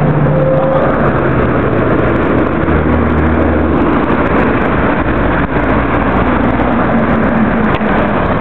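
Steady, loud road traffic noise: a continuous wash with a low engine hum.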